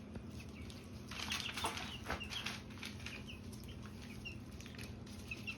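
Ducklings peeping in short, high chirps, with a noisy scuffle lasting about a second and a half starting about a second in as they go after the peas in their water.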